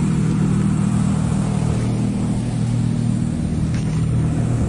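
SUV engine idling with a steady, even low hum.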